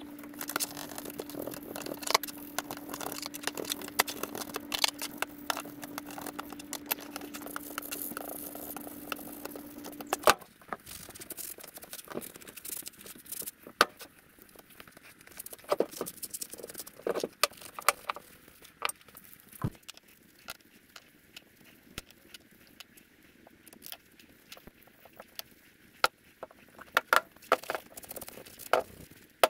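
A machine hums steadily with a hiss, stopping suddenly about ten seconds in. After that come scattered light clicks and clinks of metal vise parts being handled.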